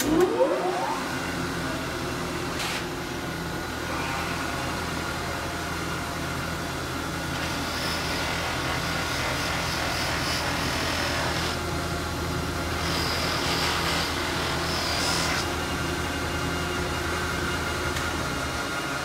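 Pedestal buffing machine switched on, its motor whining up to speed within the first second and then running steadily. A brass furniture foot is pressed against the spinning buffing wheel twice, each time adding a higher rushing sound for a few seconds, for the final polish.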